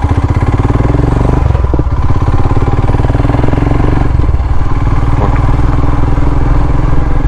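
Motorcycle engine running steadily while the bike is ridden along the road, heard from the rider's seat.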